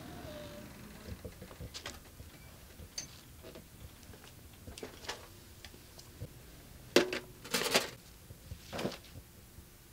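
Handling noises: clothing rustling and objects being moved about, with scattered light clicks, then a cluster of sharp knocks and scrapes about seven seconds in and another knock near nine seconds.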